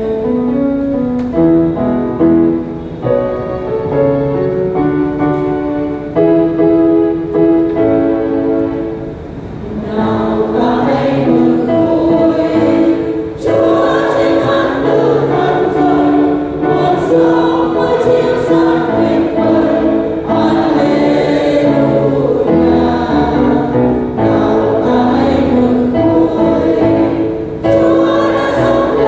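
A church choir singing a Vietnamese Catholic Easter hymn with accompaniment. It opens with an instrumental introduction of clean single melody notes for about ten seconds, then the full choir comes in.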